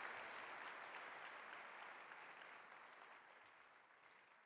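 Audience applauding, fading out steadily.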